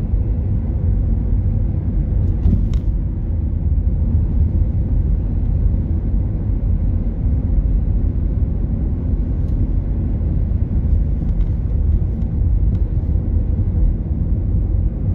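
Steady, low rumble of road and engine noise heard from inside a moving automatic car's cabin, cruising without gear changes.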